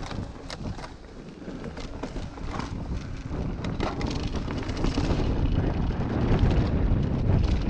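Mountain bike riding downhill on a dirt singletrack: tyres rolling over dirt, leaves and rocks, with sharp clicks and rattles from the bike, and wind buffeting the microphone. It grows louder over the last few seconds as speed builds.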